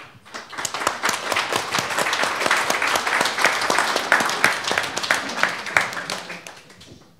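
Small audience applauding: dense hand-clapping that swells within the first second, holds, then thins out and dies away near the end.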